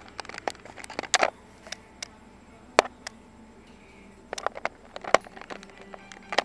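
Irregular sharp clicks and knocks of a parrot's beak chewing and tapping on hard plastic close to the microphone, some strokes much louder than others.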